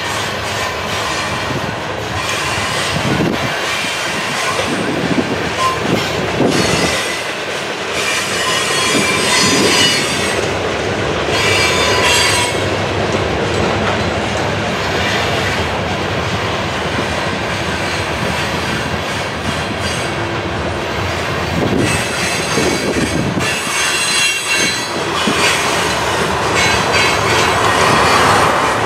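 Freight cars of a mixed train (covered hoppers, then tank cars) rolling past on steel wheels, a steady rumble with thuds and clacks as the wheels cross rail joints. Thin high-pitched wheel squeal comes and goes.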